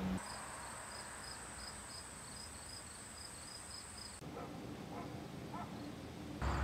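Insects chirping outdoors: a steady high trill with shorter chirps repeating about three or four times a second. The chirping cuts off about four seconds in, leaving faint background, and returns just at the end.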